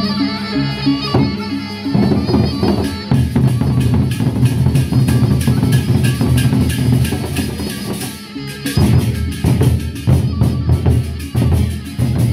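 Sasak gendang beleq ensemble playing: the big double-headed barrel drums are beaten with sticks in a fast, dense pattern. Ringing pitched notes fill the first two seconds before the drums take over, and the drumming breaks off briefly about eight seconds in before starting again.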